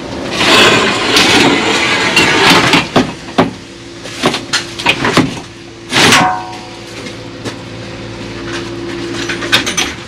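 Boards, tools and metal gear clattering and scraping as they are laid on the plywood floor of a van's load space. There are repeated knocks throughout, with one louder metal clang about six seconds in that rings briefly. A faint steady low hum runs under the second half.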